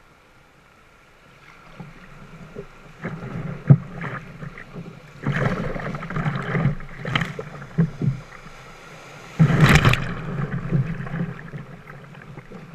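Kayak paddling: irregular splashes of paddle strokes in the river water, with a sharp knock nearly four seconds in and the loudest splash about ten seconds in.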